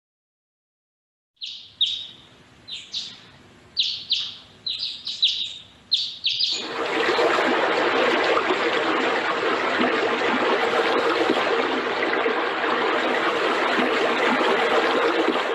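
Played-back natural-sound maskers: a bird twittering in a quick run of short, high chirps, then from about six and a half seconds in a steady rush of fountain water.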